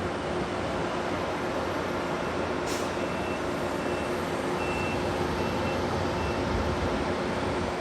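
Steady running noise of heavy construction machinery with a constant hum. A faint reversing alarm beeps five or six times from about three seconds in, just after a single sharp click.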